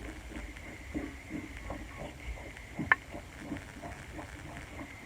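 Small metal parts of a powder-measure linkage being handled and threaded together: scattered light clicks and taps, with one sharp click about three seconds in.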